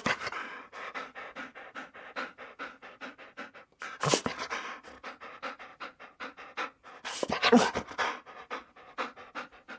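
A dog panting rapidly and steadily, about five breaths a second, with a few louder breaths about four and seven and a half seconds in.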